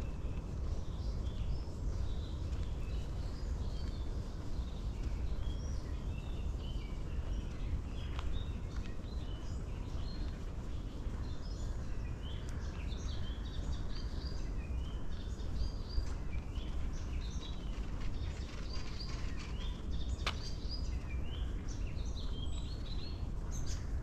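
Small songbirds chirping and calling on and off in forest, over a steady low rumble.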